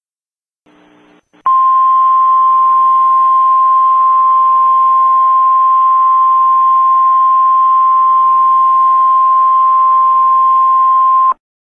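Emergency Alert System attention tone: one loud, steady single-pitch tone, the National Weather Service's roughly 1050 Hz warning alarm, starting about a second and a half in, sounding for about ten seconds and then cutting off sharply. It signals that a tornado warning follows.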